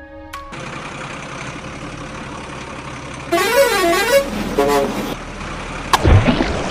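Steady truck engine sound, with a horn blast that warbles up and down about three seconds in and a short second toot. Near the end a heavy thump and splash as the toy dump truck drops into a muddy puddle.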